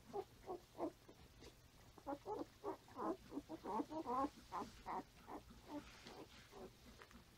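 Five-day-old standard poodle puppies squeaking as they crawl about: a quick run of short, high cries, thickest in the middle seconds and thinning toward the end.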